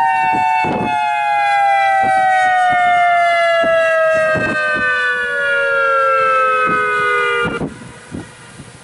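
Whelen 3016 rotating electronic siren sounding its two-tone alert (850/1020 Hz) as the pitch glides steadily down in a wind-down, then cutting off about seven and a half seconds in. Gusty wind buffets the microphone throughout and is left alone at the end.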